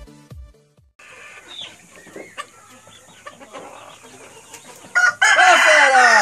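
Electronic intro music ends within the first second, leaving chickens clucking faintly. About five seconds in, a rooster crows loudly.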